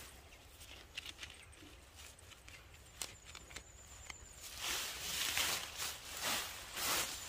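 Sweet potato vines and leaves rustling in several swishing bursts as they are pulled aside by hand, with a few light clicks. A faint high rapid trill runs about three seconds in.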